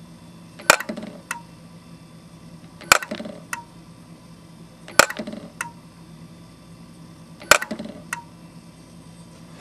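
PCS-100 tool breakage sensor cycling its wand four times: each cycle a sharp click, then about half a second later a lighter tick with a brief ring. A low steady hum runs underneath.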